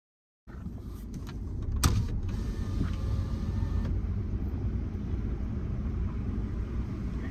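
Inside a moving car: the low, steady rumble of the car and road, with one sharp click about two seconds in. It starts after a brief silent gap.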